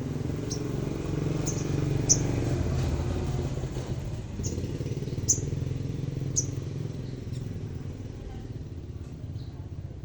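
A motorcycle engine running steadily nearby, with short, high chirps now and then. The chirps are loudest about two and five seconds in.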